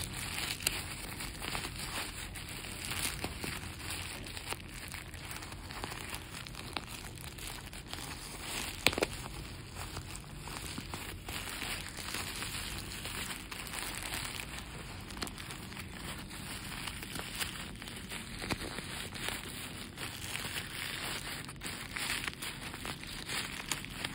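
Thin plastic courier mailer bag crinkling and rustling in irregular bursts as it is handled, with one sharper crack about nine seconds in.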